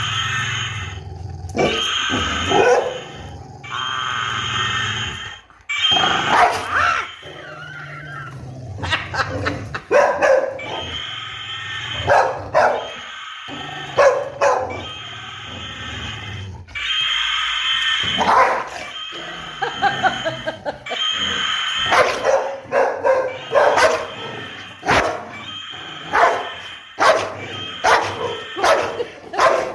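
Small dog barking and yipping over and over at a battery-powered toy dinosaur, which plays its electronic roaring sound in repeated bursts of a second or two; the dog is frightened of the toy.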